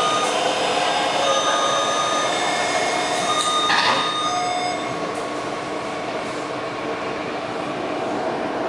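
Taipei Metro C321 train's traction inverter whining over the running noise of the train, its tones cutting in and out in choppy segments and jumping between pitches instead of gliding smoothly. The uploader identifies this segmented inverter sound at low speed as an abnormal noise from car 1152. A brief harsh burst comes about four seconds in.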